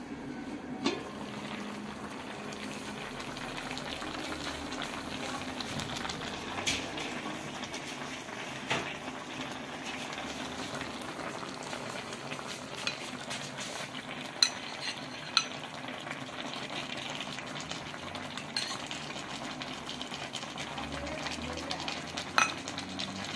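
A pot of potatoes and meat cutlets simmering in sauce in an aluminium kazan: a steady bubbling, broken by a few sharp clinks of the lid and a metal spoon against the pot.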